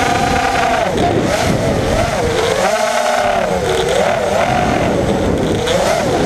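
FPV racing quadcopter's electric motors and propellers whining, the pitch rising and falling smoothly and continuously as the throttle changes, heard from a camera mounted on the drone.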